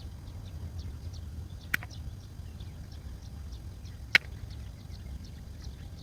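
Two sharp clicks about two and a half seconds apart, from the parts of a phone charging cable being cut or snapped apart by hand to reach its gold-plated contacts, over a low steady rumble.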